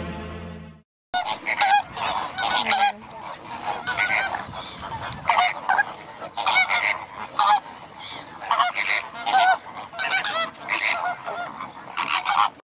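Music fading out in the first second, then a flock of greater flamingos honking: repeated short calls from several birds, overlapping, until just before the end.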